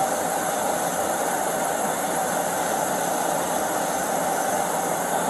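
A patrol car's engine idling: a steady, unchanging noise with a constant hiss above it.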